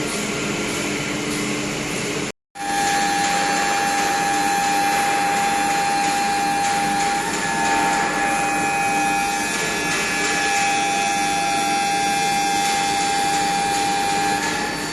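Woodworking CNC machinery running steadily with a constant whine over a machine hiss, cut off briefly about two seconds in.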